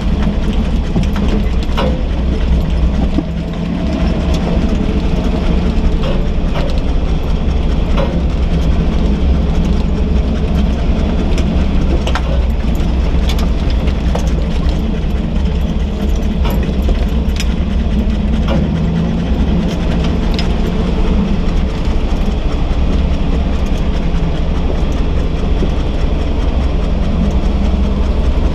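A 4x4's engine and drivetrain running steadily as the truck crawls over a rocky trail, heard from inside the cab: a steady low rumble with scattered clicks and knocks from rocks under the tyres and body rattles.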